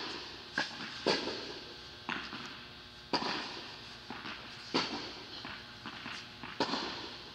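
Tennis ball bouncing on an indoor hard court before a serve: about six sharp pops at uneven gaps, each with a short echo off the hall.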